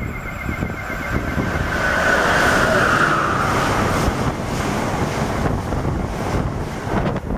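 Amtrak passenger train passing at speed right alongside the platform. A loud rush of wheels and air builds over the first couple of seconds as the head end goes by, then settles into a steady rumble as the Amfleet coaches stream past, with wind buffeting the microphone.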